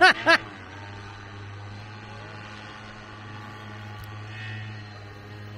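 Paramotor in flight: its engine and propeller give a faint, steady hum at an unchanging pitch.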